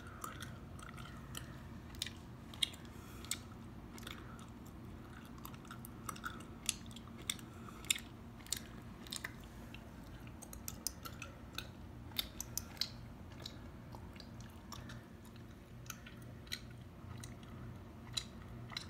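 Chewing gum close to the microphone: a steady run of irregular sharp clicks and smacks.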